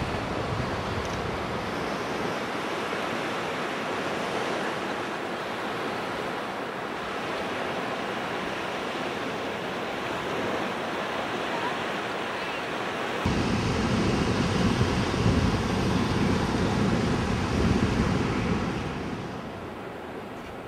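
Steady wind noise on the microphone, an even rushing hiss; about thirteen seconds in it turns louder and deeper, with gusty low rumbling, and it eases off again near the end.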